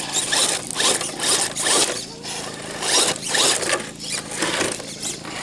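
Scale RC crawler truck's electric motor and drivetrain gears whirring in a series of short rasping bursts as it is throttled over the course.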